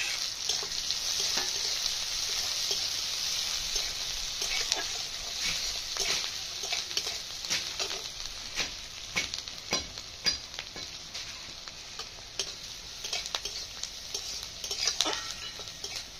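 Chopped onion and green chilli sizzling in hot mustard oil in a metal wok, with a steel spatula scraping and clicking against the pan as they are stirred. The sizzle is loudest just after they go in, eases off, and swells again near the end.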